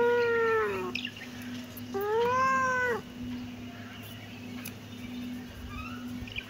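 Kitten meowing: two long meows that rise and fall in pitch, about two seconds apart, then a few fainter short mews near the end, over a faint steady hum.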